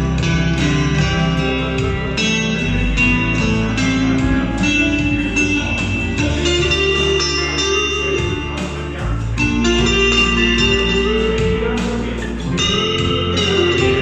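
Electric guitar played live through an amplifier: a melodic line of held notes, some of them bent.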